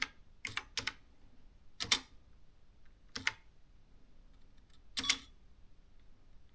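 Canon S-60 thermal electronic typewriter keys being struck sparsely: two quick keystrokes, then three single key clicks spaced a second or more apart.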